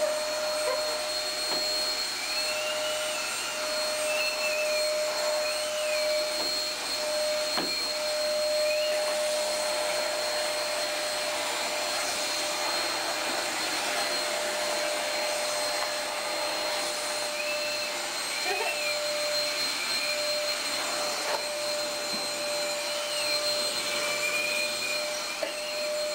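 Upright vacuum cleaner running on carpet: a steady motor whine over an even rush of air.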